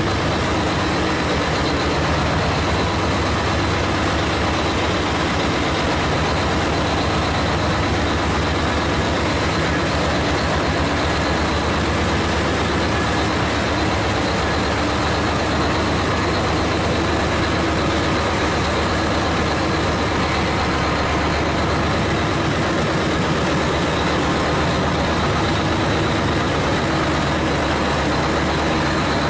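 Heavy mining machinery running steadily: the constant low drone of a large haul truck's diesel engine beside a working rope shovel, with no distinct knocks.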